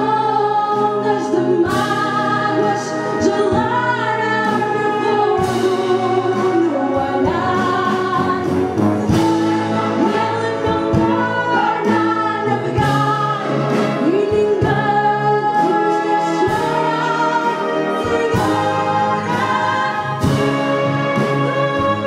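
Live singing into a microphone, accompanied by a concert wind band of clarinets and brass playing a song arrangement.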